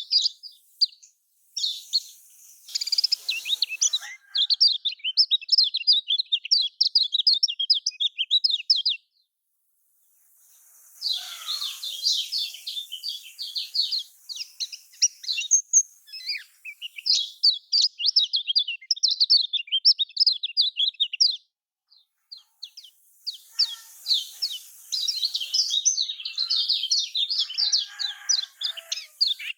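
Kecial kuning (a Lombok white-eye) singing a fast, chattering song of rapid high chirps in long runs. The song breaks off twice, about a third of the way in and again about three-quarters of the way in.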